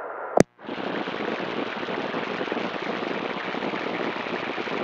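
A single click as the CB radio switches over from transmit, then a steady, crackly hiss of static from the receiver on an open channel with nobody transmitting.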